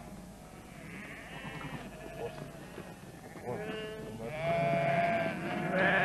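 A flock of sheep bleating: several separate calls overlapping, one of them long, the loudest near the end.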